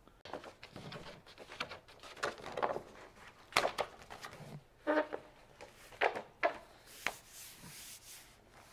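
A large print on heavy paper being unrolled and pressed flat by hand on a wooden table: stiff paper rustling and crackling, with several sharp crackles and a brief sliding hiss near the end.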